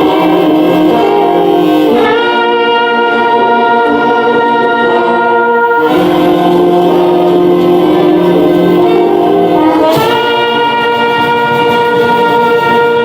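Brass band playing slow, sustained chords, moving to a new chord about every four seconds.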